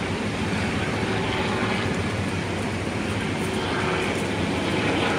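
Steady low drone of a boat engine under a constant wash of wind and water noise.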